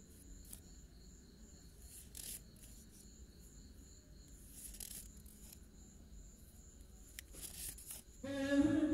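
Faint crinkling and rustling of plastic-feeling polymer banknotes being handled and shuffled, in a few short scattered rustles, over a faint steady high pulsing tone. Near the end a voice with music starts up.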